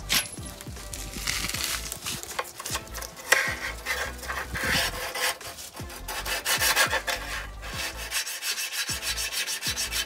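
Zubr grit-200 diamond hand block rubbed back and forth along the cut edge of a porcelain tile, scraping it smooth to take out the chips left by the angle-grinder cut. The strokes turn quicker and more regular near the end.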